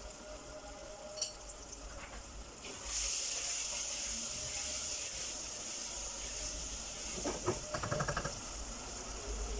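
Potatoes and onions sizzling in hot oil in a pot, the hiss growing louder about three seconds in. A wooden spatula stirs through them, with a quick run of scrapes and knocks near the end.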